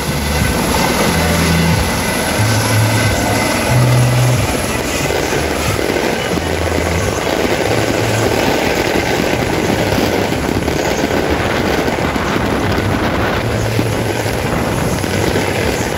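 Single-engine helicopter with a Fenestron tail rotor landing close by: loud, steady rotor and turbine noise.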